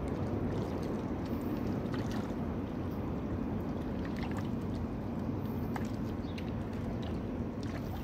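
Seaside ambience: a steady low rush of sea water, with scattered faint ticks.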